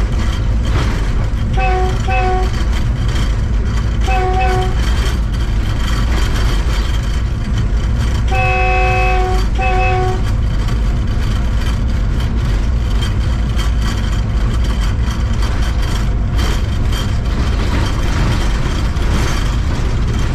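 Train horn sounding over the steady rumble of a train running at speed: two short toots about two seconds in, another short one about four seconds in, then a long blast and a short one around nine seconds.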